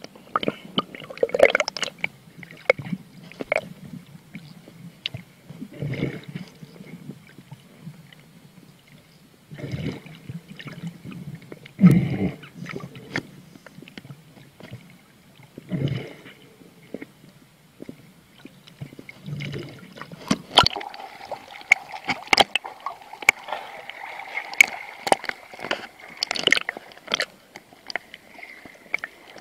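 Underwater sound of scuba divers breathing: exhaled bubbles gurgle out of the regulators every few seconds, with clicks and knocks on the camera housing. About two-thirds of the way through, a steady hum comes in under a dense crackle of bubbles.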